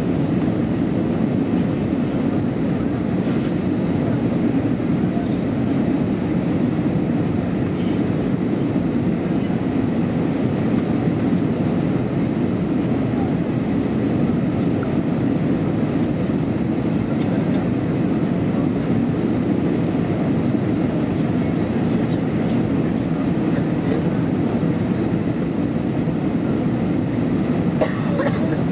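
Steady cabin noise aboard an Airbus A320-233 on approach: the IAE V2500 engines and the airflow past the fuselage make an even, unbroken low rumble, with a short knock near the end.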